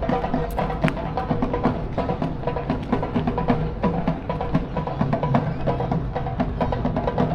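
Music with percussion: a quick, steady run of woody knocks over short pitched notes.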